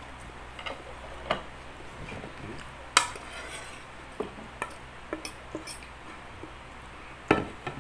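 Metal cutlery clinking and scraping against dinner plates while eating, a scattering of short clicks, the sharpest about three seconds in and another near the end.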